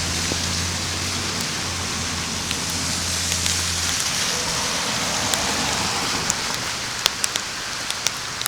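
Heavy rain falling, with sharp clicks of single drops striking close by. A low steady hum sits underneath for the first four seconds, then stops.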